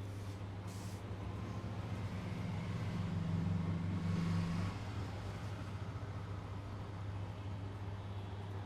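A steady low mechanical hum, with a second, stronger hum layered on it that cuts off sharply about four and a half seconds in.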